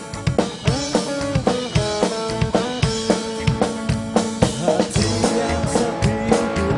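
Live rock band playing: a drum kit keeps a steady beat of kick and snare under electric guitars, with guitar notes bending up and down.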